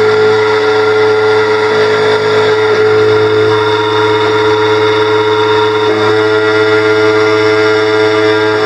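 Keyline 994 Laser key-cutting machine running, its cutter milling the blade of a van key: a loud, steady motor whine with small shifts in tone as the cut progresses.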